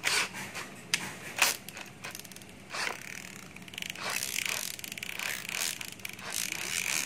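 A cordless drill-driver being handled and worked by hand: a few sharp clicks and short scrapes, then a longer stretch of scraping and rattling in the second half.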